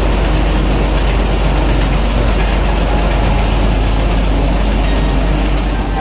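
Large inline multi-cylinder marine diesel engine of a river passenger launch running, a loud steady drone heard inside the engine room.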